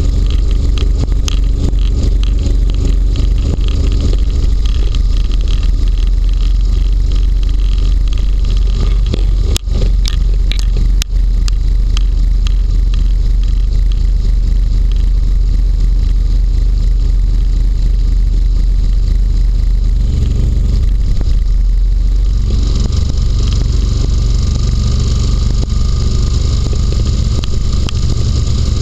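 Inflatable hovercraft running at speed over snow, heard from low on its hull: a loud, steady drone from its engine and air fan, with a hissing rush that grows stronger about 22 seconds in. There are two brief dips in the sound about ten and eleven seconds in.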